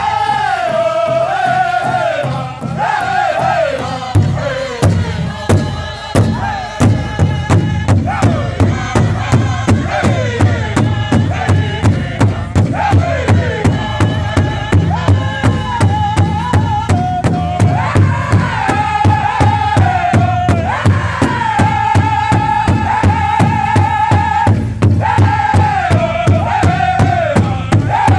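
Powwow drum group: several drummers strike one large bass drum in unison at a fast, steady beat while men and women sing in high, falling phrases. The drumbeat grows heavier about four seconds in.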